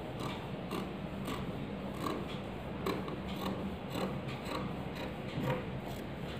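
Scissors snipping through fabric in a steady series of short cuts, about two snips a second, as a blouse piece is cut out along a marked curve.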